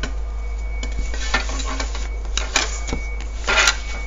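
Plastic set squares being shifted and lined up on paper: a few sharp plastic clicks and short scraping slides, the loudest near the end.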